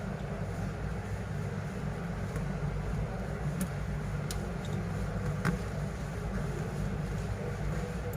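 Steady low rumble of background road traffic, with a few faint small clicks about halfway through.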